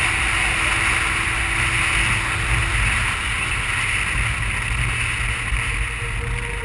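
Derbi X-treme 50cc two-stroke motorcycle running at a steady cruise on the road, with wind rushing over the microphone.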